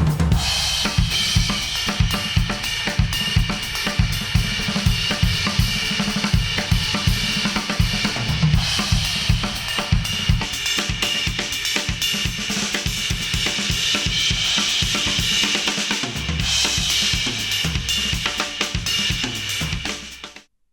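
Song with a full drum kit (kick, snare, hi-hats and cymbals) in an instrumental passage, played back through headphones and recorded at an artificial ear. It stops suddenly near the end.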